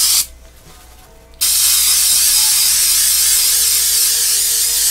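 Aerosol can of automotive clear-coat lacquer spraying with a steady hiss. The spray breaks off just after the start and resumes about a second later.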